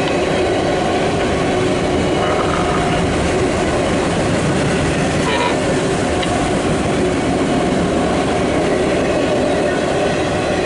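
Empty autorack cars of a CSX freight train rolling past at close range: a loud, steady rumble of wheels on rail and car bodies.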